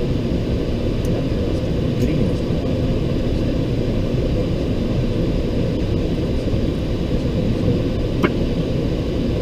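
Steady low-pitched background noise inside the cockpit of a parked Boeing 757, with a few faint clicks.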